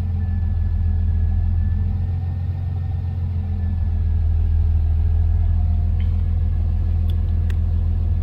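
Lexus IS300's turbocharged 2JZ-GE inline-six idling steadily just after starting, running on an AEM standalone ECU, heard from inside the cabin. A few light clicks come near the end.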